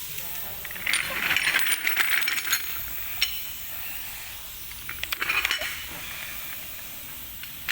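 Metal hardware clinking and rattling, handled during strut mount work. It comes in two spells of short clicks, about a second in and about five seconds in, with a single sharp click between them.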